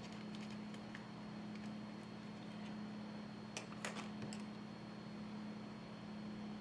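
Small clicks and taps of tools and parts being handled while a replacement battery is fitted into an iPhone 6. A few faint ones come in the first second and a quick cluster of sharper ones comes about three and a half seconds in, over a steady low hum.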